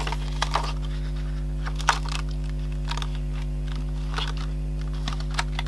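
Sheet of clear acrylic stamps being handled and peeled from its plastic backing: scattered light clicks and crinkles, the sharpest about two seconds in, over a steady low electrical hum.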